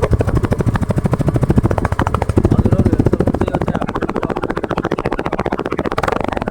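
Yamaha FZ V2's single-cylinder engine running on its stock silencer: a steady, rapid exhaust putter without much bass.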